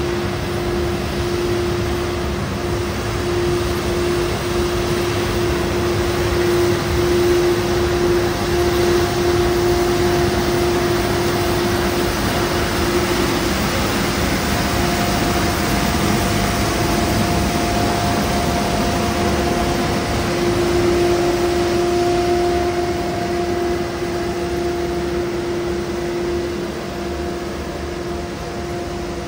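Volvo FL road sweeper truck at work, its suction fan and engine running in a steady, loud rushing drone with a constant whine.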